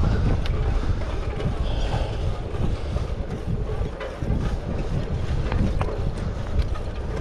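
Wind buffeting the microphone of a camera on a bicycle being ridden along a road: a steady low rumble, with a few light clicks over the top.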